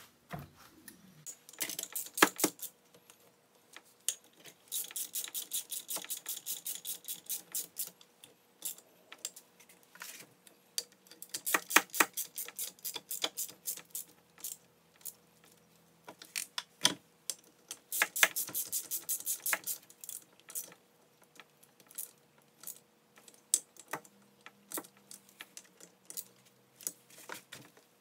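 Quick runs of metallic clicks and ticks as a screwdriver drives in the through-bolts of a 6-volt Autolite starter during reassembly, with scattered single clicks and taps of metal parts between the runs.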